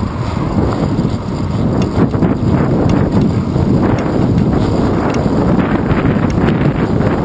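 Wind buffeting the microphone of a handlebar-mounted GoPro Hero 2 on a moving road bike, a loud steady rumble, with frequent small clicks and knocks as the bike rolls over the pavement.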